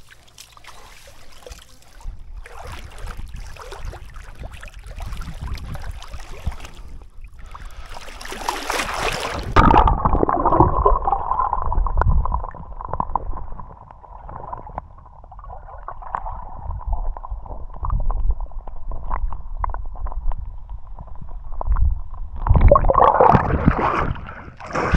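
River water sloshing and gurgling, with splashes and knocking handling noise, louder about eight seconds in and again near the end.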